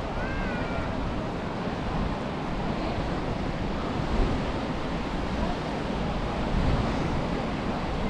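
Sea surf washing on the beach, with wind buffeting the microphone in low gusts. A brief, wavering high call sounds just after the start.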